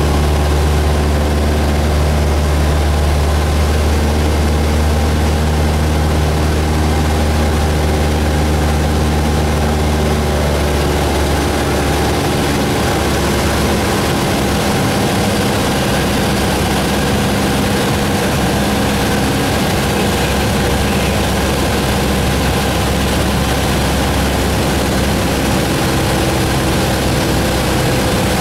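Engine and propeller of a single-engine light plane droning steadily, heard inside the cabin. About twelve seconds in the engine note changes, its deep low hum fading.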